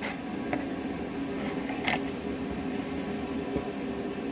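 Steady mechanical hum of a fan or air handler in a small workshop room. Over it come a few faint taps and a soft thump as a plastic protractor is shifted on a cardboard sheet.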